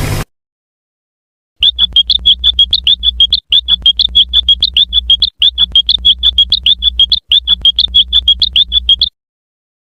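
Cartoon sound effect, heavily amplified: rapid high-pitched electronic chirping, about five pulses a second over a low hum, in stretches of about two seconds with brief breaks, starting after a short silence and cutting off near the end.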